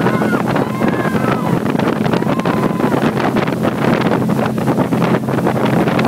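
Motorboat engine running steadily under way while towing a wakeboarder, with wind buffeting the microphone and water rushing in the wake.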